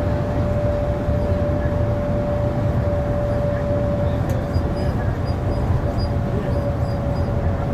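A train in motion: a steady rumble of wheels on rails, with one steady whine held throughout.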